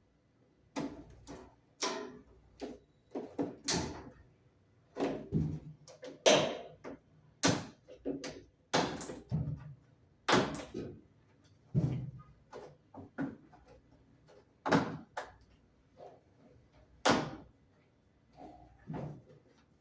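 A string of irregular knocks, clacks and clunks, about twenty over the stretch, as the washing machine's cover and panels are handled and pulled loose during disassembly.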